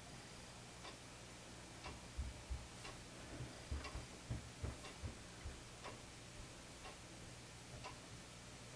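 A clock ticking steadily about once a second, with a run of soft low thumps between about two and five and a half seconds in, over a faint low steady hum.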